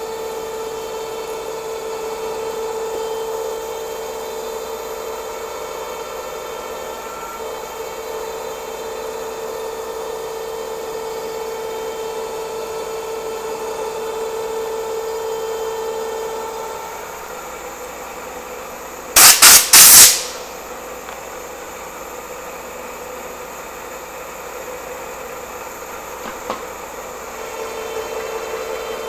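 Bridgeport milling machine running an end mill through a keyway in a 1045 steel shaft: a steady whine that eases off about 17 seconds in and comes back near the end. About 19 seconds in, three or four very loud short bursts of noise follow close together.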